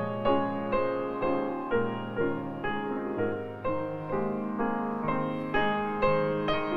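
Background piano music: single notes and chords struck about twice a second, each fading away.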